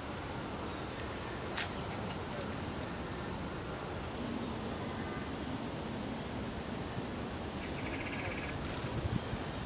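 Outdoor ambience: a steady hiss with a thin, high-pitched whine running through it. A single sharp click comes about a second and a half in, and a short, rapid trill near the end.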